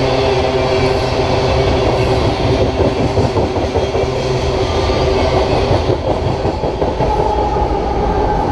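Loaded coal hopper cars rolling past close by, their steel wheels clattering steadily over the rail joints. Near the end the rear pusher locomotives, GE diesel-electrics giving distributed power, draw up with a steady engine tone.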